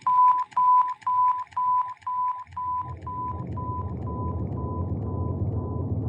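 Synthesized sci-fi sound effect: a single-pitch electronic beep repeating about twice a second, fading away over the second half, while a low rumble comes in about two and a half seconds in and holds steady.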